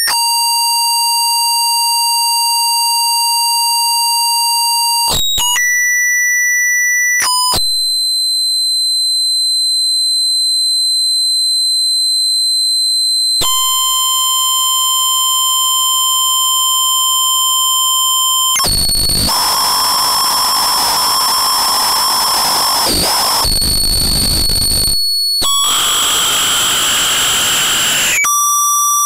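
Output signal of an NE555 timer astable multivibrator with one pin miswired, heard as electronic tones. Steady buzzy pitches jump abruptly from one to another, with a pure high whistle for about six seconds. Twice in the second half the signal breaks into harsh noise as the circuit goes into chaos, and it settles on a steady tone near the end.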